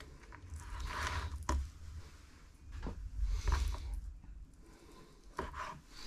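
A kitchen knife cutting through raw pork chop on a wooden cutting board, with short scraping strokes and a couple of sharp ticks of the blade against the board, and wet handling of the meat as it is pulled away.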